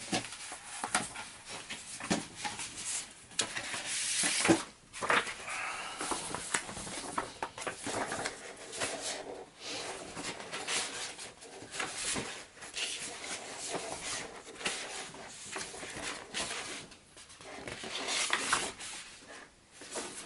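A cardboard board-game box and its paper contents being handled: on-and-off rustling and rubbing, with occasional light taps.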